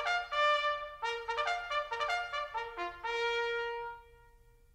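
Short trumpet fanfare: a quick run of bright notes ending on one long held note, which stops about four seconds in.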